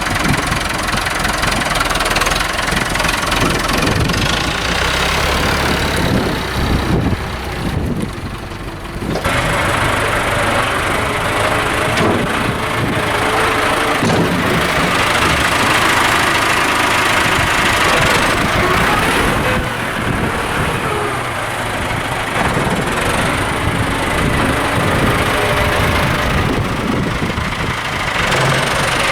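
Farm tractor's diesel engine running as the tractor is moved and works its front loader, the engine note dipping briefly about seven seconds in and then picking up again.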